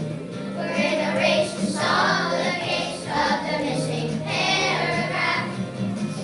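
A group of children singing together over a recorded musical accompaniment.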